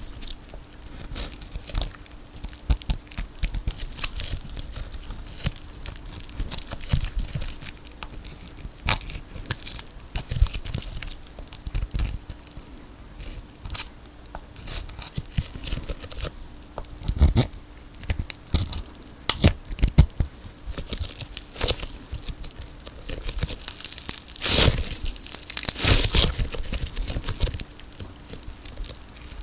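Tape ball being cut open, its layers of sticky tape tearing, crinkling and crackling as they are pulled apart in irregular bursts, loudest near the end.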